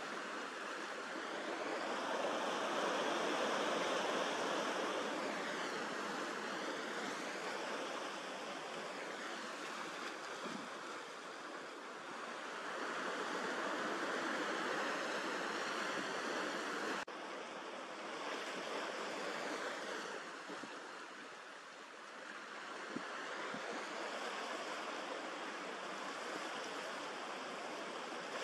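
Sea waves washing onto a stony shore: a steady rushing noise that swells and fades slowly every several seconds, with a sudden short break about seventeen seconds in.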